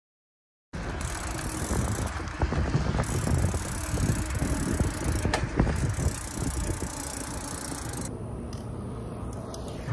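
Trek Marlin mountain bike being ridden: steady rush of wind on the microphone with tyre noise and scattered drivetrain rattles and clicks. It starts abruptly just under a second in.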